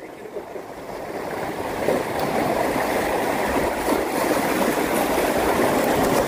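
Seawater surging and washing over shoreline rocks: a steady rushing that swells over the first two seconds and then holds.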